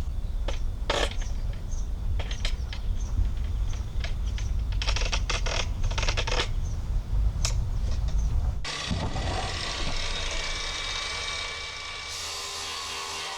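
A run of sharp mechanical clicks and knocks over a strong low rumble; about two thirds of the way in it cuts off and gives way to a steady hiss with a faint hum.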